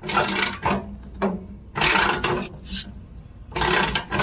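Sawmill blade tensioner being cranked up: three mechanical strokes about two seconds apart, over a steady low hum.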